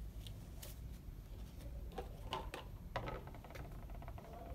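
Soft rustles and a few light knocks of supplies being handled on an overbed table: a towel laid out and a small plastic wash basin picked up. The loudest knock comes about three seconds in, over a low room hum.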